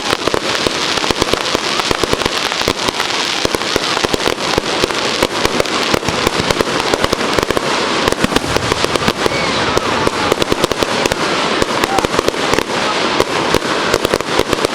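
Fireworks going off in a dense, continuous barrage of rapid crackles and bangs, many per second, with no let-up.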